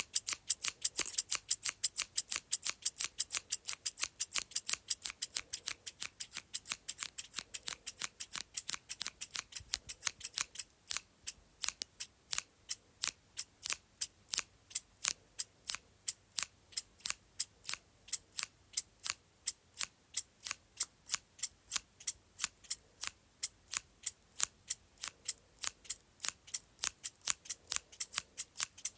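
Scissors snipping over and over in a steady rhythm, about four sharp snips a second.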